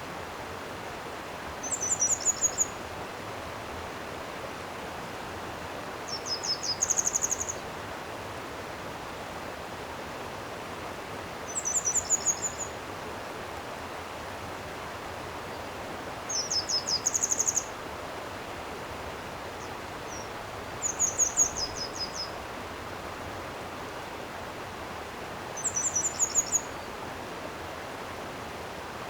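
Running water of a stream making a steady rush, with a small songbird repeating a short, high trill of rapid, slightly descending notes about every five seconds, six times.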